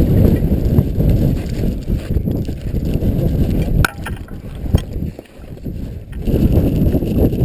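Strong blizzard wind buffeting the microphone, a loud low rumble that eases briefly about four seconds in before rising again, with a couple of sharp clicks in the lull.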